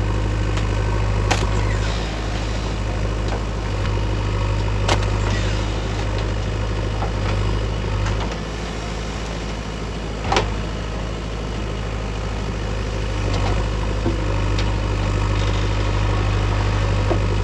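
Diesel engine of a JCB 3DX backhoe loader running steadily, easing off a little about eight seconds in and picking up again, with a few sharp metallic knocks over it.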